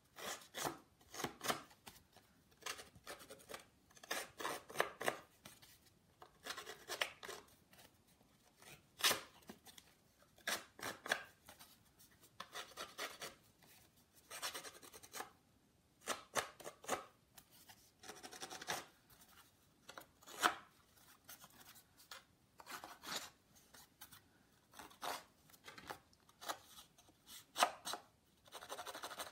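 Card edges being scraped with a handheld edge-distressing tool: many short, irregular rasping strokes with brief pauses between.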